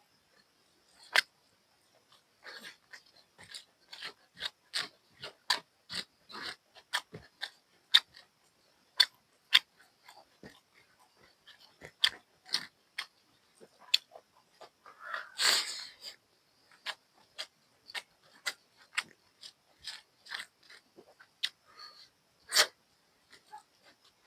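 Close-miked eating sounds: wet mouth smacks and clicks of chewing, one or two a second, with a longer noisy slurp-like sound about fifteen seconds in.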